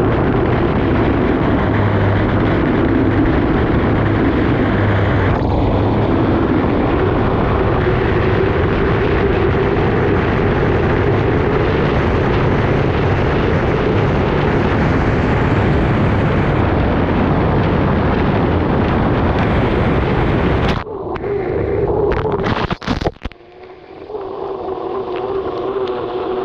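Turbine-powered unlimited hydroplane at racing speed, heard from on board: a loud, steady rush of engine, wind and water. About 21 seconds in the noise drops off sharply and breaks up for a moment, then settles into a quieter, steadier running tone.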